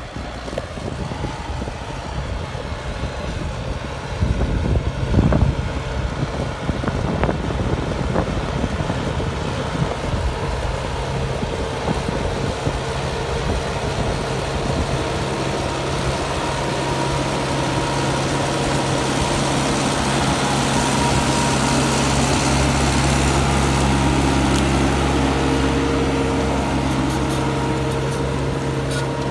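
Case JX100 tractor's diesel engine running steadily under load while pulling a subsoiler through the ground. It gets louder as the tractor comes close, with a brief louder burst about five seconds in.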